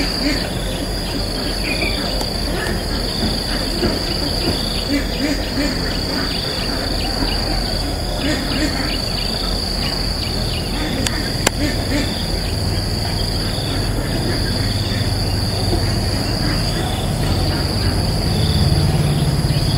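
Steady, high-pitched drone of an insect chorus, with one sharp click about halfway through and a low rumble growing near the end.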